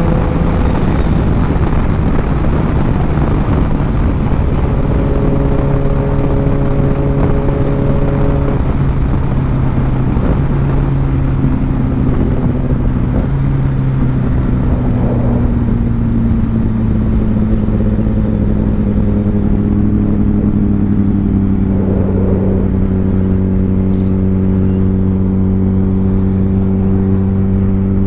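Kawasaki ZX-10R inline-four motorcycle engine running steadily while riding, under a dense rush of wind noise. Its pitch eases down slowly through the middle, then holds steady.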